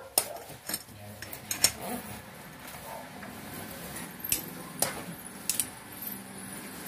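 Irregular sharp metallic clinks and taps as a flaring tool is clamped and worked on the end of a copper refrigerant pipe; a few of the clinks are louder and ring briefly.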